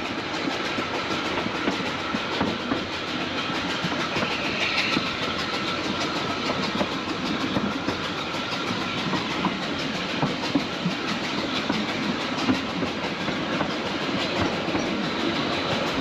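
Narrow-gauge steam train running along, heard from aboard a carriage: a steady rumble with dense rattling and clicking of wheels and coach over the track.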